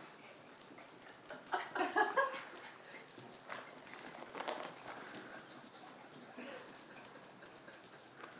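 A puppy and a small dog play-fighting and chasing, with scuffling and a short dog vocalisation about two seconds in.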